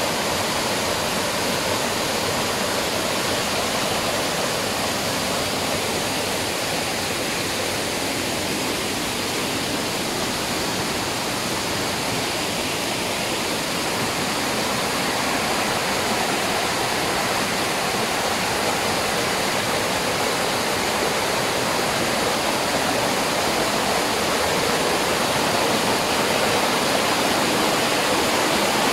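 Steady rush of water falling at a waterfall, getting slightly louder near the end.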